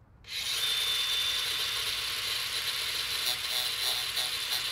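A power tool running steadily at speed: a loud high hiss with a thin whine in it. It starts abruptly a moment in and runs without a break.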